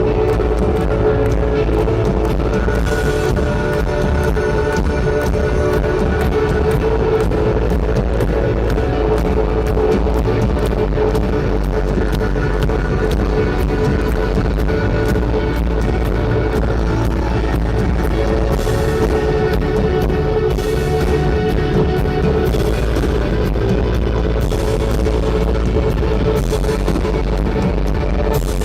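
Rock band playing live: a loud, steady instrumental passage with no singing.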